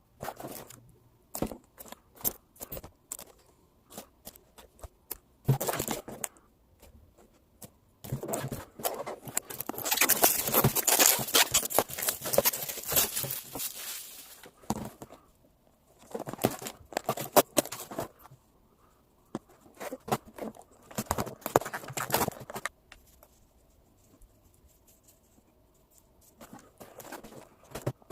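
Packaging being handled and opened by hand: scattered taps and clicks, then a long stretch of rustling and crinkling from about eight to fourteen seconds in, with shorter bursts of rustling after it.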